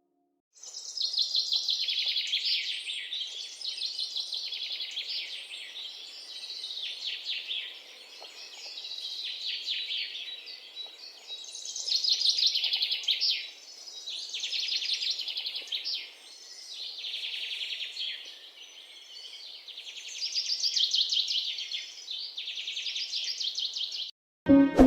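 Small birds chirping and twittering in rapid, overlapping calls that swell and fade in bouts every couple of seconds. The chirping starts about half a second in and stops abruptly about a second before the end.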